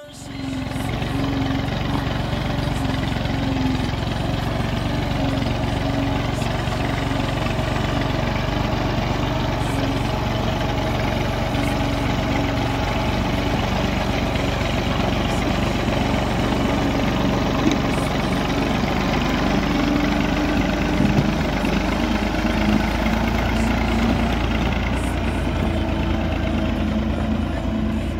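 Massey Ferguson tractor's diesel engine running steadily under load as it tows a heavily loaded trailer, with a constant engine note.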